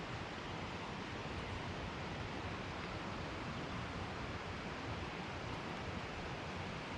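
Steady rushing of flowing creek water, an even noise with no distinct events.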